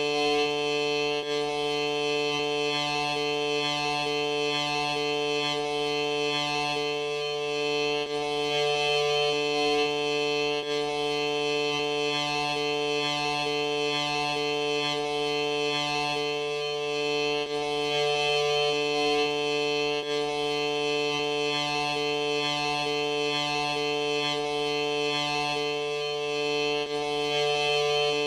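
A sneeze slowed and stretched out enormously, heard as a steady, organ-like drone of several held pitches. One lower tone drops out and comes back every few seconds.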